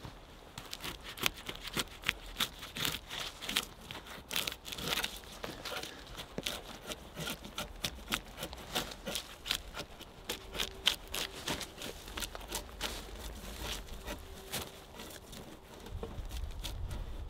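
TOPS CUMA Kage short sword drawn two-handed along a log like a drawknife, its edge shaving off bark and wood in a run of irregular crackling scrapes.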